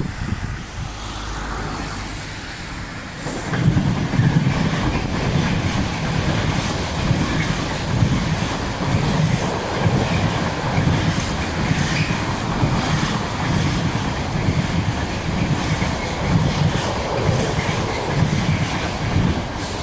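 Freight train passing at close range, hauled by a class 66 diesel locomotive. The wheels clatter in a steady rhythm, loudening about three and a half seconds in.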